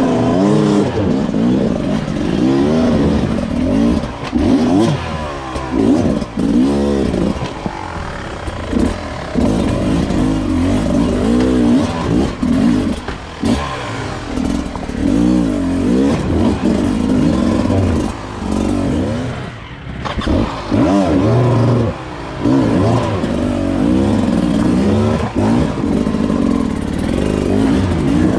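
Beta 300 two-stroke enduro motorcycle engine revving up and down over and over as it is ridden along a trail. The throttle opens and closes every second or so, with a short drop-off around two-thirds of the way through.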